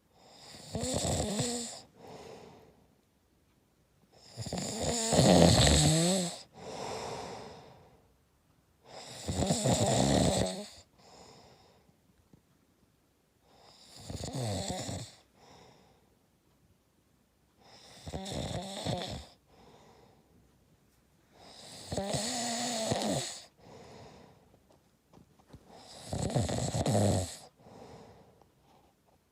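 A middle-aged man snoring: seven loud snores about four seconds apart, each followed by a shorter, quieter breath.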